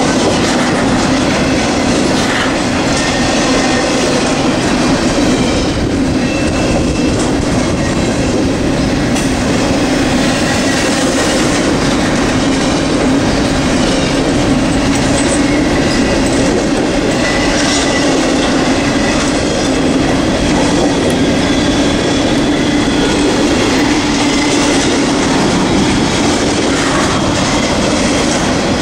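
Norfolk Southern double-stack intermodal freight train rolling past close by: a steady, loud rumble of steel wheels on rail, with faint high wheel squeals now and then.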